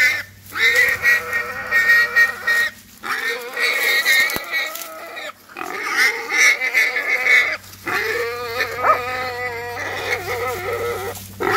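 Wild boar squealing in distress in four long drawn-out screams, each two to three seconds long with brief breaks between, while held in the jaws of a Laika hunting dog.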